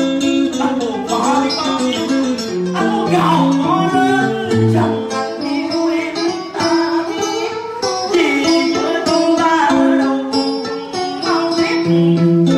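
Cải lương stage music: plucked string instruments playing a continuous melody of held notes with sliding, bent pitches.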